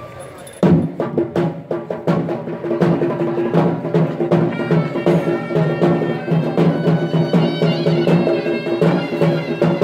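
Traditional percussion music: rapid, even wooden knocks and drumbeats over a steady held low tone, accompanying the Mappadendang dance.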